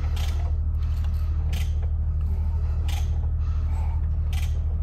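Mazda 2.2 Skyactiv diesel engine being turned over by hand with a socket and ratchet on the crankshaft bolt: a click or creak about every second and a half as the ratchet is worked. A steady low hum runs underneath.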